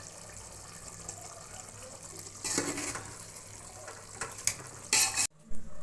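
Water running, with louder gushes about two and a half seconds in and again near the end, then cutting off abruptly.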